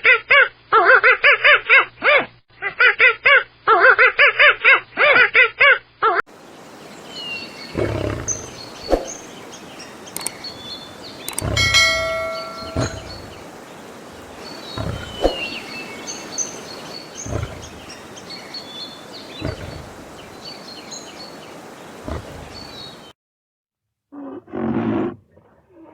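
A run of animal sound clips. First, loud rapid calls in two long runs. Then outdoor ambience with scattered bird chirps, a few thumps and one short call. Near the end a low, rough roar begins, typical of a lion.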